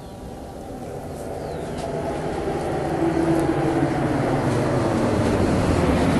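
Steady low rumbling noise that grows louder over the first three seconds, then holds loud.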